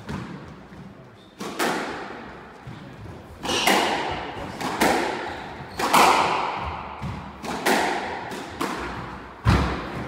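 Squash ball struck by rackets and smacking off the court walls during a rally. The hits come sharp, often in quick pairs every second or two, and each rings on in the court's echo.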